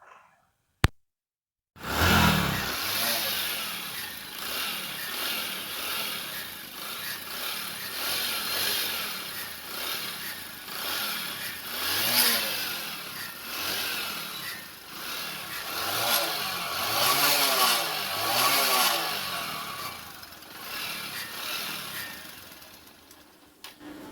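A sharp click, then the Bajaj Discover 100's single-cylinder four-stroke engine comes in about two seconds in and runs with the throttle blipped up and down again and again, until it cuts off near the end. It makes a bad, loose-piston-like knock because no engine oil is reaching the oil filter chamber: the engine is starved of oil.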